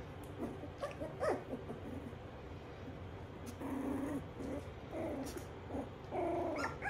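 25-day-old Schnoodle puppies whimpering and whining in short calls, with a brief falling squeal about a second in and longer whines near the middle and near the end.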